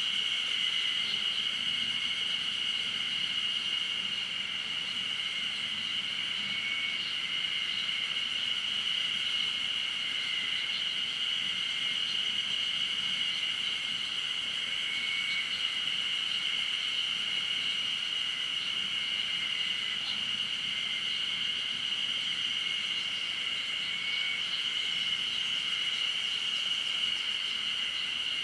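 A steady insect chorus: a continuous high-pitched trill that does not let up, with a fainter, lower call swelling now and then.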